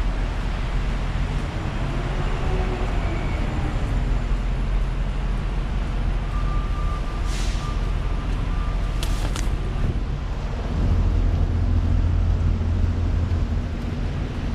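Steady rumble of road traffic from the street below an elevated subway platform, with a short hiss about halfway through and two sharp clicks soon after; the low rumble swells in the last few seconds.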